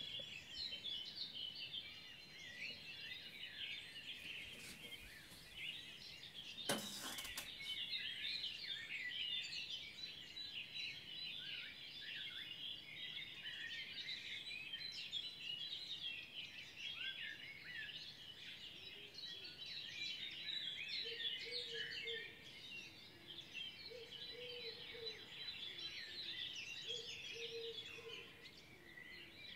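Spring dawn chorus of many songbirds chirping and trilling over one another, with a single sharp knock about seven seconds in and lower held notes joining in during the second half.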